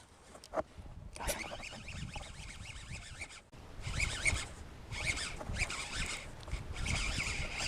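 Fishing reel being cranked to retrieve a lure: a scratchy, rhythmic whirr in several bursts with a short pause about halfway, after a couple of sharp clicks near the start.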